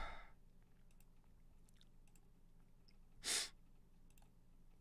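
Faint computer mouse clicks scattered through a quiet room, and one short, sharp exhale close to the microphone about three seconds in.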